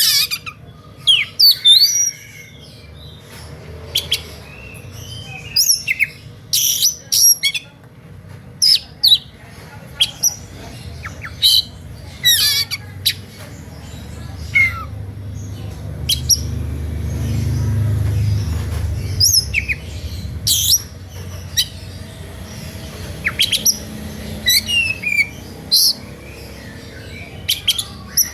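Oriental magpie-robin giving sharp chirps and quick whistled sweeps in short clusters with brief pauses, in a fired-up, aggressive mood of the kind used to provoke other magpie-robins into calling back. A low rumble swells and fades midway.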